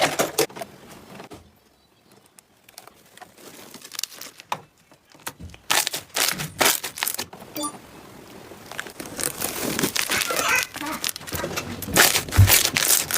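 Slime being handled and squished, giving sharp crackling, crinkling clicks. It goes nearly quiet for a moment early on, then crackles more densely through the second half.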